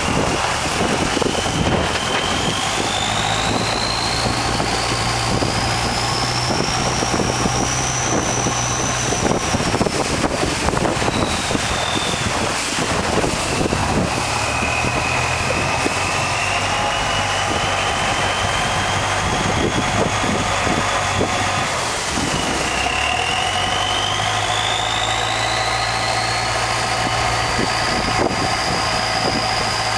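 Boat engine running steadily, with a high whine that slowly rises and falls twice.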